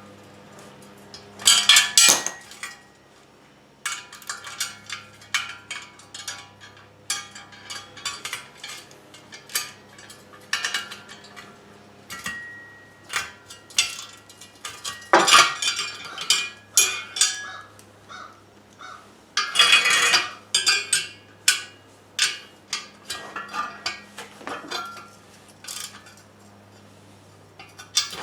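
Socket wrenches clicking and clinking against steel as a bolt and lock nut are tightened on a mounting bracket, in irregular bursts of sharp metallic clicks, with a faint low hum underneath.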